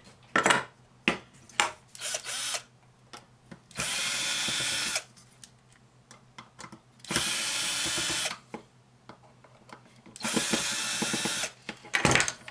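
A power drill running in three short bursts of about a second each, with a few sharp clicks from wire cutters snipping wires early on.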